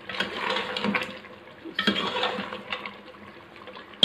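Metal ladle stirring mutton in a thick, oily gravy in an aluminium pressure cooker: two spells of wet sloshing with light scrapes and clicks on the pot, the first at the start and the second about two seconds in. The meat is at the frying-down (bhuna) stage, its water cooked off.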